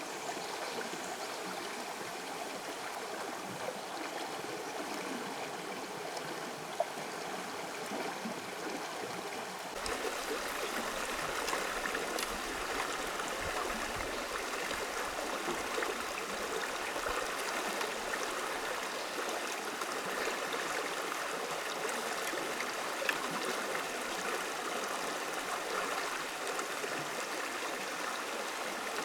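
Running water of a forest stream, a steady rushing and trickling that becomes louder about ten seconds in.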